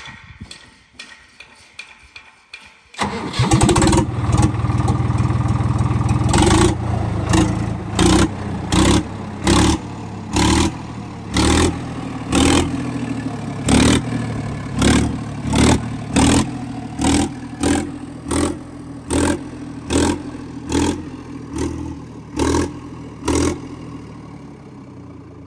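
Swaraj 963 FE tractor's three-cylinder diesel engine started with its silencer removed, running on an open exhaust. It catches about three seconds in, then is revved in short regular bursts a little more than one a second, easing off near the end.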